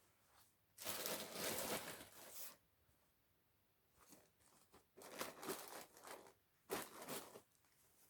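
Plastic packaging of disposable shoe covers rustling and crinkling as they are pulled out and handled, in about four separate bursts, the longest one near the start.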